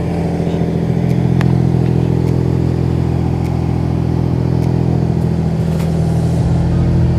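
Nissan 350Z's 3.5-litre V6 engine running steadily at a constant speed, its note holding one even pitch, with a few light ticks over it.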